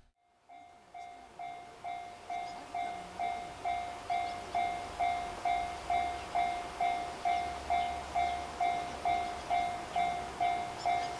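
Japanese railway level-crossing warning bell ringing steadily, a struck, decaying tone repeated a little more than twice a second, starting about half a second in: the signal that a train is approaching.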